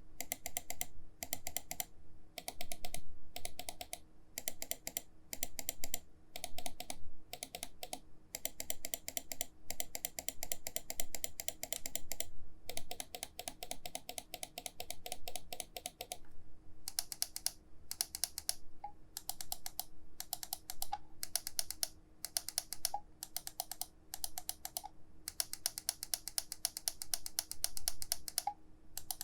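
Buttons of a VAXEE ZYGEN NP-01S Wireless gaming mouse clicked in rapid runs, many clicks a second, with short pauses between runs. The clicks change in character about halfway through.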